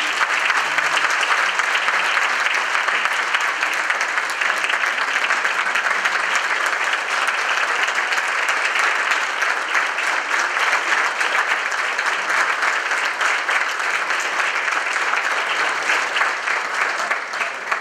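A large audience applauding, many hands clapping at once in a dense, steady stream that begins to taper off at the very end.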